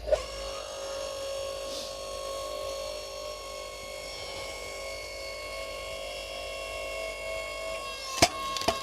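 Log splitter running steadily under load as it pushes into a knotty, gnarly-grained log, with a few sharp cracks near the end as the wood gives.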